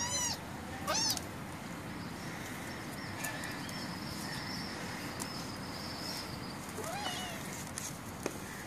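Young kitten meowing: short, high, rise-and-fall meows right at the start and again about a second in, then a fainter one about seven seconds in. A single sharp click comes near the end.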